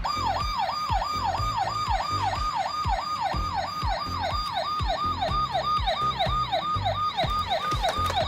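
Electronic police siren: a fast repeating falling tone, about three sweeps a second, starting suddenly. Under it runs background music with a steady beat.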